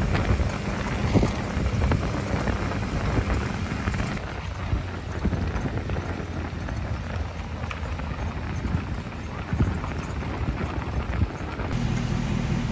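Truck driving on a gravel road: steady tyre and road noise with a crackle of many small ticks from loose gravel, over a low engine hum that fades about four seconds in and returns near the end.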